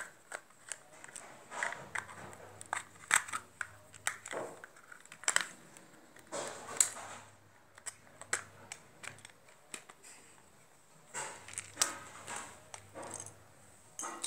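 A plastic hot glue gun being taken apart by hand: a screwdriver working out the small screws of its housing, then the two plastic halves pried open, making irregular clicks, taps and short scraping rattles.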